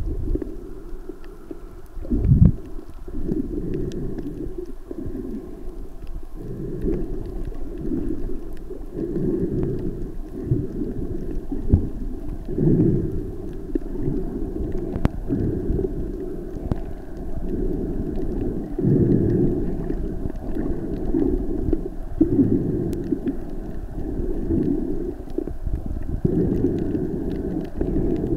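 Muffled underwater rumble and water sloshing picked up by a camera's microphone while it is submerged, swelling and fading every couple of seconds, with faint scattered clicks.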